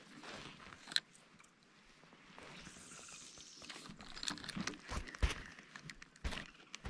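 Gear and feet knocking about in a small aluminium fishing boat: a sharp click about a second in, then scattered knocks and several dull thumps near the end.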